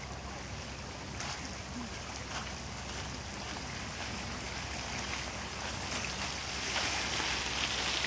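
Small waves lapping against a shoreline rock over a steady low hum, the water noise growing slightly louder toward the end.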